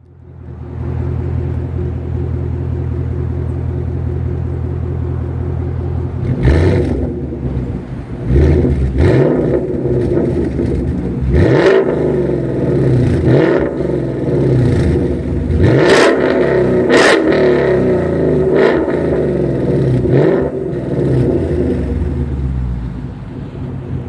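2015 Ford Mustang GT's 5.0 L Coyote V8 through an aftermarket Roush exhaust, idling and then revved again and again, its pitch rising and falling with each blip. A few sharp cracks come at the tops of the revs, and it settles back to idle near the end.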